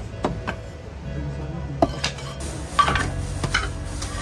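Cleaver chopping on a thick wooden chopping block, about eight sharp knocks at uneven intervals, over background music.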